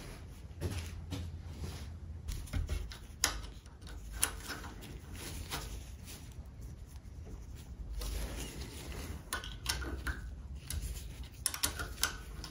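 Scattered light metal clicks and taps of a hex key being seated and turned in the pinch bolts of an aluminium motorcycle triple clamp, with gloved-hand handling noise between them.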